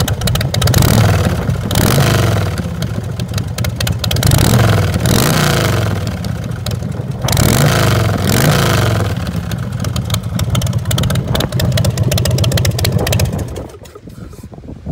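2005 Big Dog chopper's carbureted 117 cubic inch S&S V-twin running through its 2-into-1 SuperTrapp exhaust, revving up and back down several times. It drops away sharply near the end.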